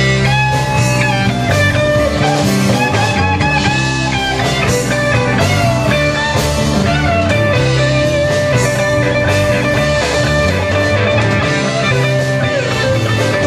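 Live rock band playing an instrumental passage, electric guitar prominent over bass, drums and keyboard.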